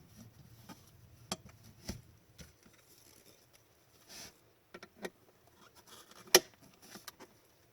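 Hockey trading cards and foil pack wrappers being handled: scattered light taps and rustles, with one sharp click about six seconds in.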